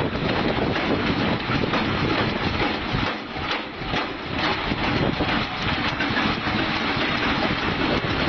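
An engine running, with a brief drop in level about three seconds in.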